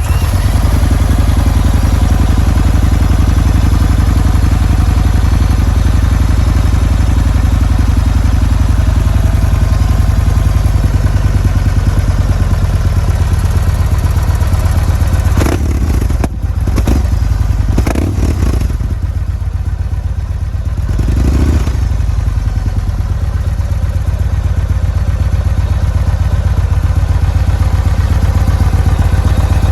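An engine running steadily just after starting, with a few knocks or clatters about halfway through.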